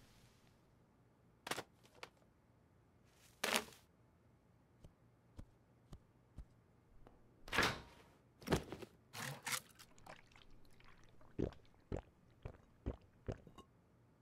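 Scattered knocks, clatters and rustles of things being handled and searched through, loudest about halfway in. Near the end comes a run of small crisp crunches, about two a second, of someone biting and chewing.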